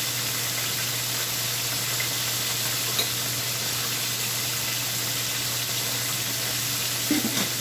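Thin chicken breast frying in hot oil, a steady sizzle throughout. A light click about three seconds in and a short clatter near the end.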